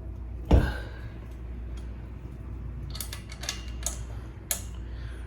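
Bike parts and tools being handled during assembly: one loud knock about half a second in, then a quick run of sharp clicks and clinks a few seconds later.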